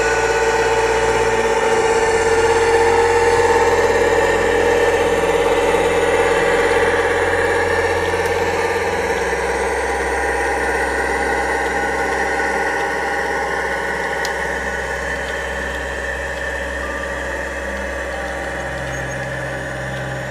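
Sound-fitted OO gauge model diesel locomotive, apparently a Class 55 Deltic, playing recorded diesel engine sound through its onboard speaker as it runs. The engine note holds steady with a whining tone that rises slightly, the bass shifts twice, and the sound slowly fades as the train moves away.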